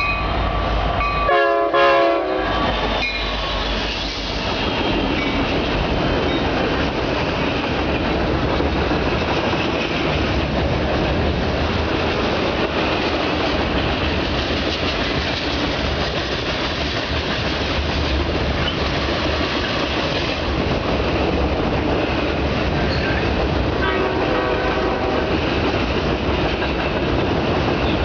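Union Pacific freight train passing, its lead EMD diesel locomotive sounding a short chord on its air horn about a second in. After that comes the steady loud rumble and rail noise of the locomotives and freight cars rolling by. A brief, fainter tone is heard near the end.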